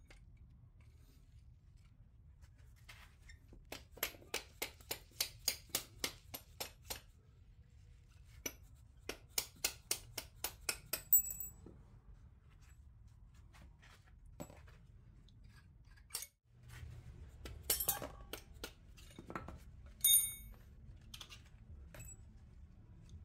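Rapid light taps of metal on metal, about four a second in two runs, as a pin punch drives the brake pad retaining pins out of a Brembo brake caliper. Near the end, a single ringing metallic clink.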